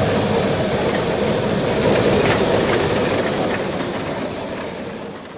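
Steam locomotive working hard under a heavy smoke plume, a dense rumble of rapid exhaust beats, fading away near the end.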